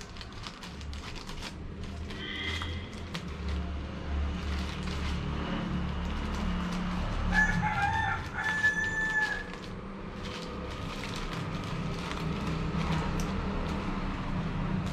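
A rooster crows once, about two seconds long, near the middle. Around it come short snips and crinkles of scissors cutting through a plastic mailer bag, over a steady low hum.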